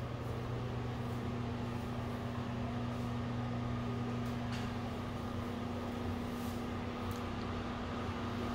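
Steady machine hum with a constant low tone and a fainter higher one over an even noise, with a couple of faint ticks about halfway through.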